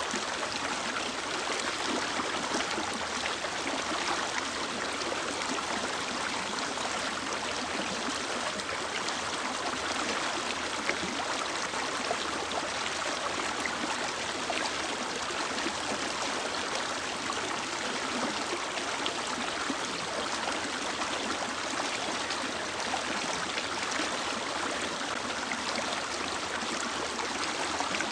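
Mountain stream or river flowing over rocks, a steady rushing and gurgling of running water.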